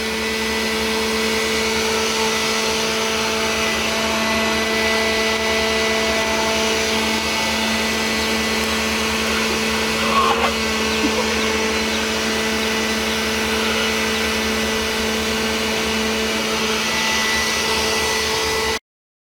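Steady hum of a small electric motor with a constant tone, with a brief small sound about ten seconds in; it stops abruptly near the end.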